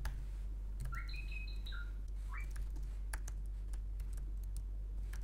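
Typing on a computer keyboard: irregular keystroke clicks. A bird gives a few short, high chirps about one to two and a half seconds in.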